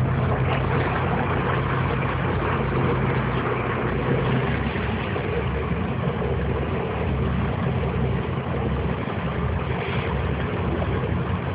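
Boat engine running steadily at low speed, a low hum under a steady hiss, as the boat backs up slowly.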